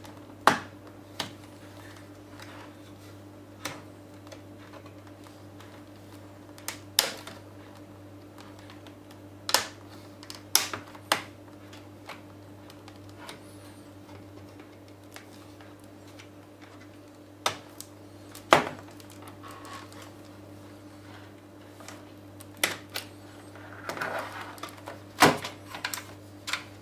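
Plastic snap-fit clips of a Samsung NP300V5A laptop's bottom cover clicking and snapping loose as a metal pry tool is worked along the casing seam: about a dozen sharp clicks at uneven intervals, over a steady low hum.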